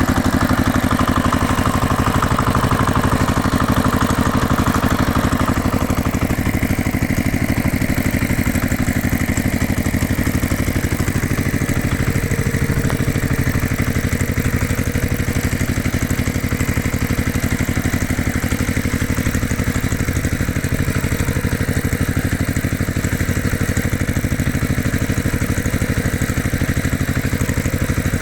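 Tractor engine idling steadily with an even, rapid chugging pulse.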